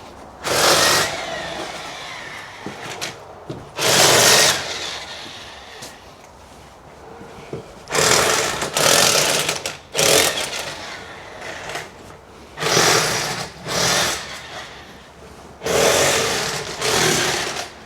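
Small handheld rotary tool grinding in about ten short bursts, each under a second long.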